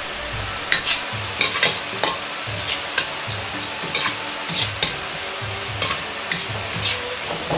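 Garlic slices sizzling as they fry in a little olive oil in a wok, with a metal ladle scraping and tapping against the wok every half second or so as it stirs them.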